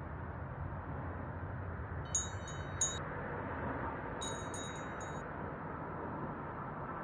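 Two short runs of high, bright chime strikes, a magical twinkle sound effect, about two and four seconds in, over a steady low ambient drone.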